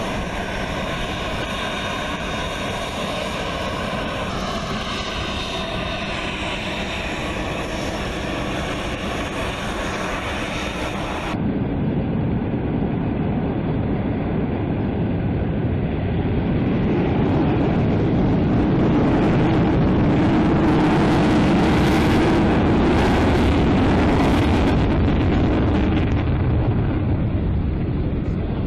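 Panavia Tornado's twin RB199 turbofan engines. First a steady whine with several held tones, then after a cut a louder jet roar that builds, swells about three-quarters of the way through and eases near the end.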